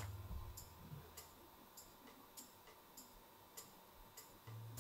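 Near silence with faint, regular ticking, about one tick every 0.6 seconds, and a faint low hum at the start and again near the end.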